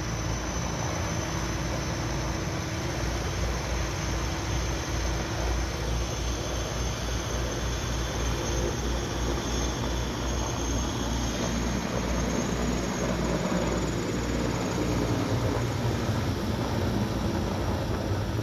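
Sikorsky S-64 Skycrane heavy helicopter with twin turbine engines hovering with its snorkel in a dip tank, then lifting off and passing overhead. A steady rotor beat sits under a continuous turbine roar and a faint high whine, and it grows a little louder in the second half.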